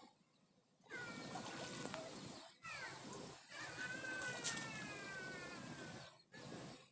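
Several drawn-out animal calls, some falling slowly in pitch, over a faint high-pitched pulsing tone.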